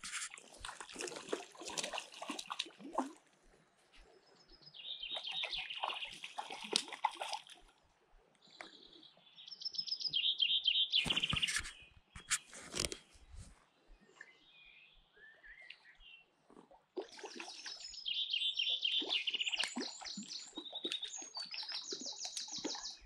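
Songbirds singing in several bouts of rapid, high trills, with gaps between them. Under them come splashing and water noise from a hooked brown trout thrashing at the surface of the river.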